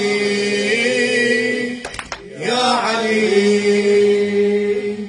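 A male radood chanting a Shia elegy, drawing out two long held notes, the second beginning about halfway through. A couple of brief clicks fall in the short gap between the notes.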